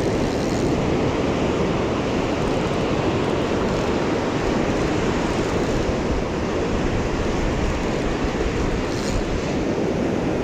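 Surf washing on the beach with wind on the microphone: a steady, even rushing noise.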